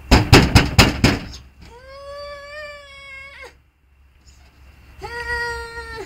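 Several loud bangs in quick succession in the first second, like pounding on a door, followed by two long, high, drawn-out wails.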